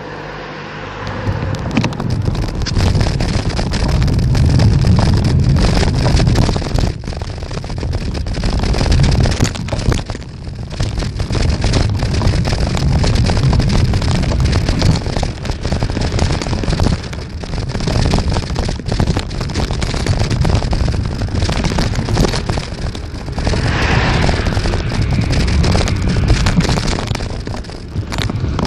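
Wind buffeting the microphone of a camera on a moving bicycle: a loud, continuous low rumble that picks up about a second in, with road and tyre noise underneath.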